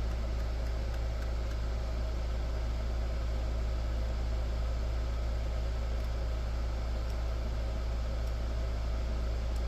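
Steady low hum with a faint even hiss, unchanging throughout, with no other distinct sounds.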